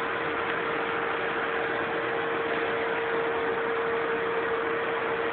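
Steady rushing noise with a constant mid-pitched hum running through it, unchanging.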